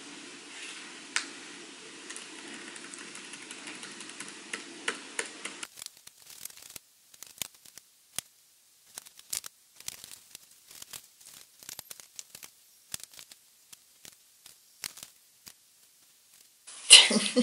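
Occasional laptop keyboard and trackpad clicks over a steady low hum. About six seconds in the hum cuts off, leaving scattered light clicks and handling rustles with silence between them.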